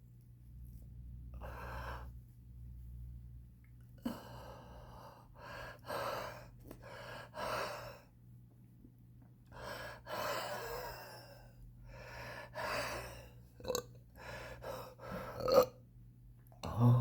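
A smoker's wheezing, labored breathing: a run of raspy gasping inhales and exhales about every one to two seconds, some with a thin whistle in them.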